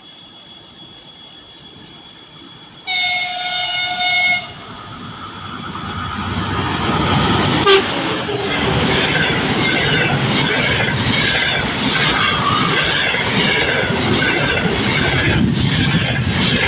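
EP2K electric locomotive sounds its horn once, a blast of about a second and a half. The train then approaches and passes with a rising rumble, and from about halfway in its wheels clatter rhythmically over the rail joints.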